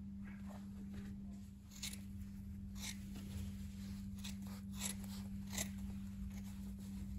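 Scissors cutting through suede shearling hide in a series of short, crisp snips, about one a second, starting about two seconds in.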